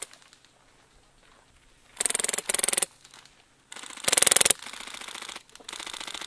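Airsoft guns firing full-auto bursts of rapid clicking shots. There are two short bursts about two seconds in, a louder burst just after four seconds, quieter strings of fire around it, and another burst near the end.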